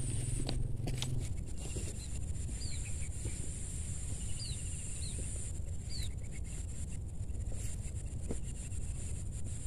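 Rural ambience with a steady high-pitched insect drone and five or six short falling bird chirps. Beneath them is a low rubbing rumble from the camera being handled.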